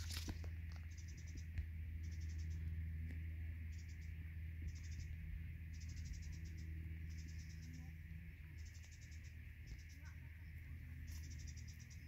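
Crickets chirping: short trains of rapid high-pitched pulses repeating roughly once a second, over a steady high trill and a low steady drone.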